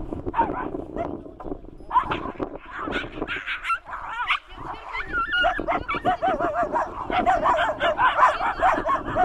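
Dogs yelping and barking in quick, overlapping calls, sparse at first and then dense from about two seconds in.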